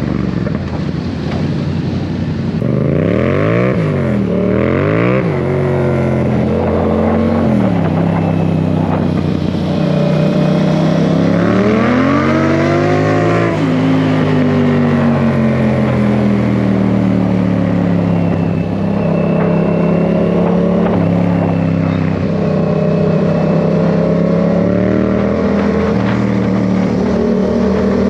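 Yamaha MT-07 parallel-twin engine through a Mivv GP Pro carbon full-system exhaust, revved in two quick blips a few seconds in, then run up in one longer rise that falls back sharply about halfway through, and held steady the rest of the time.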